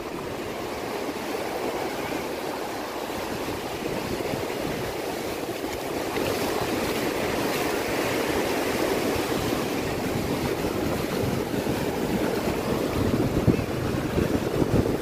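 Surf washing onto a sandy beach: a steady rushing noise that swells a little about six seconds in, with some wind buffeting the microphone.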